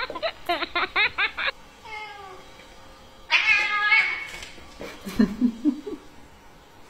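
A cat meowing: a quick run of short calls, then one louder, longer meow about three seconds in.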